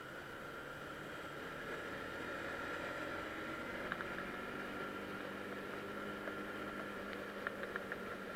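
Motorcycle engine running steadily, faint under a steady hiss, its pitch holding even; a few sharp ticks near the end.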